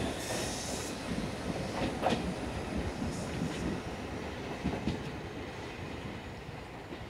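An Ichibata Electric Railway electric train pulls away and recedes, its wheels clacking over the rail joints. The sound fades steadily as the train moves off. A brief hiss comes near the start.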